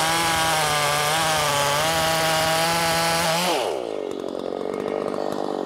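Makita 5600 chainsaw, a Dolmar-built 56 cc two-stroke with a muffler mod, running at full throttle under load in a cut through a big log, holding about 10,300 RPM with small dips. About three and a half seconds in the throttle is let off and the revs fall quickly to idle.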